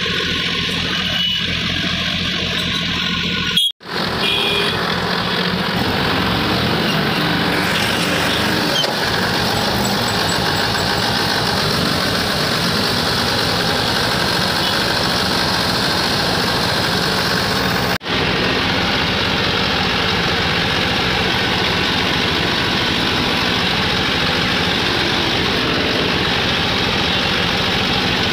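Massey Ferguson 9500 tractor's diesel engine running steadily as the tractor is driven, heard from the driver's seat, broken twice by brief cuts.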